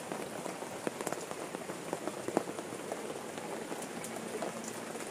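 Steady rain falling: an even hiss with many small, sharp drop ticks scattered through it.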